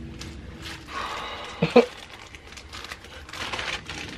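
Clear plastic bag crinkling as it is handled and opened by hand, with a short louder noise about halfway through.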